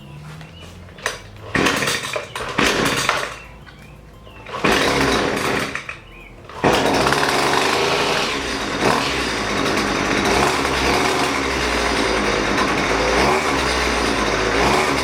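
Husqvarna 128LD string trimmer's small two-stroke engine being started: it fires and runs for a second or two and dies twice, then catches about six and a half seconds in and keeps running steadily. This follows a half-turn counterclockwise adjustment of the carburetor's low-speed mixture screw to cure bogging.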